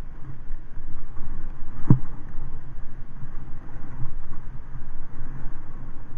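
Wind buffeting the microphone of a camera moving along a rough dirt track, a steady low rumble with one sharp knock about two seconds in.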